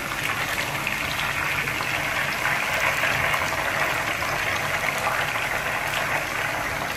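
Marinated boneless chicken pieces frying in hot oil in a pan: a steady sizzling hiss, with a few faint clicks as a slotted spoon lifts the golden pieces out.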